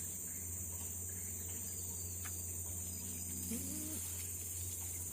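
Steady, high-pitched drone of an insect chorus over a low steady hum, with a faint brief pitched sound about three and a half seconds in.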